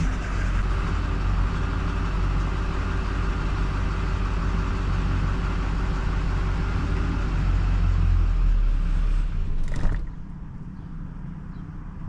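GMC diesel engine, just started, running steadily for about ten seconds and then shutting off abruptly. The stall comes from lost fuel rail pressure, caused by a filter bleeder screw that was not tightened.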